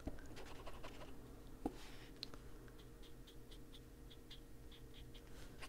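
A small foam-tipped blending tool working Distress ink onto a paper colouring page. A couple of soft taps come in the first two seconds, then from about three seconds in a quick run of faint scratchy strokes, about four a second.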